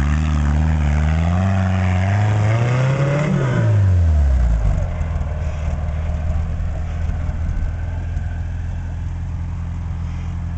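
Chain-drive rock buggy's engine revving hard on a steep rock climb, its pitch rising over the first three seconds or so and then dropping off. From about four and a half seconds in it runs steadily at low revs.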